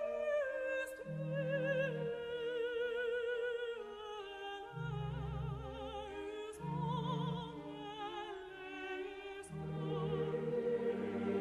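Background classical music: a singing voice holds long notes with vibrato over low sustained accompaniment notes that change every second or two.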